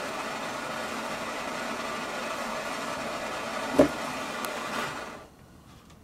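Handheld gas torch flame burning with a steady hiss, which cuts off about five seconds in. A single sharp knock comes shortly before.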